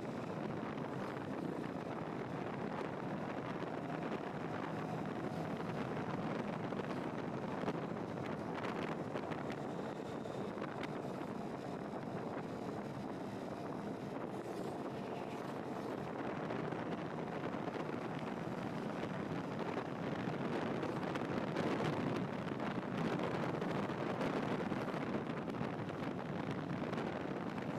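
Steady road and wind noise from a vehicle travelling along a highway, with wind rushing on the microphone; a little louder in the second half.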